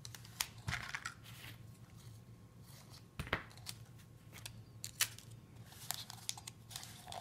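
Faint crinkling of clear packing tape and light taps of a cardboard toilet-paper roll being handled while it is taped shut, with a sharper tap about three seconds in.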